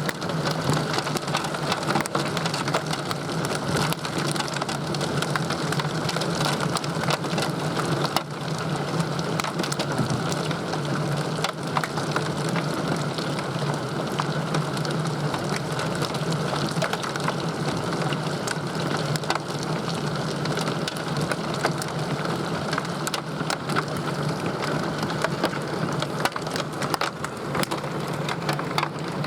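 Torrential rain pouring down in a steady, dense roar, with hailstones striking hard surfaces as many sharp ticks throughout.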